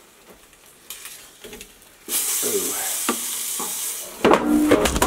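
Hot pork chop sizzling in an air fryer basket as it is turned over with a fork: a loud steady sizzle starts suddenly about two seconds in. Near the end come several knocks of the fork and chop against the metal basket.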